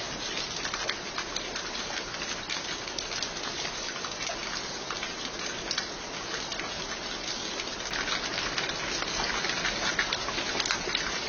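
Steady rain falling, an even hiss dotted with the ticks of individual drops hitting surfaces, growing somewhat heavier about eight seconds in.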